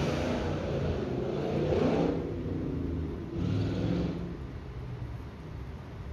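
A low engine rumble under rushing noise that swells twice, building to a peak about two seconds in and rising again briefly near four seconds.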